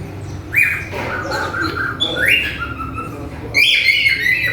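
Cockatiel singing: a run of short whistled notes and chirps with quick up-and-down pitch glides, loudest in a burst of notes near the end.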